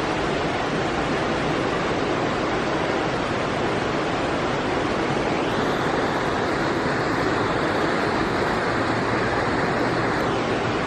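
A steady, even rushing noise with no distinct events; its higher part brightens from about halfway through until near the end.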